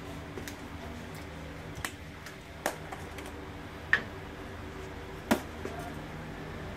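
Four sharp plastic clicks and taps as a plastic oil bottle and a metal filler funnel are handled while engine oil is topped up in an oil change, the last two the loudest. A steady low hum runs beneath them.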